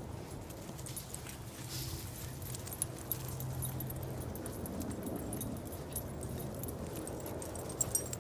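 Small dogs moving about in dry leaf litter, with light metallic jingling of collar tags or leash clips and scattered small clicks, over a steady low hum.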